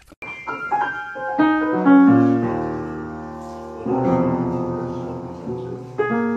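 Grand piano keys pressed by a kitten walking across the keyboard: a handful of uneven clusters of notes struck together at irregular moments, each left ringing and slowly fading.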